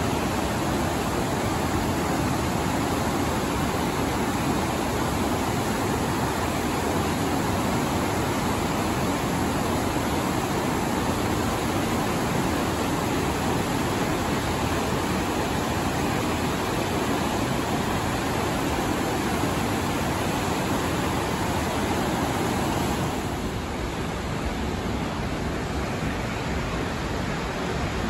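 Steady rush of white-water rapids below Snoqualmie Falls, an even wash of water noise that gets a little quieter about 23 seconds in.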